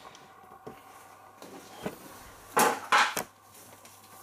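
A few short knocks and clatters, loudest in a quick cluster of three about two and a half to three seconds in, as a part of the washing machine is handled and fitted into place.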